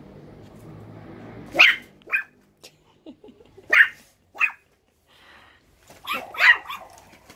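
Small Russian Toy dog barking sharply, the barks coming in three pairs about half a second apart.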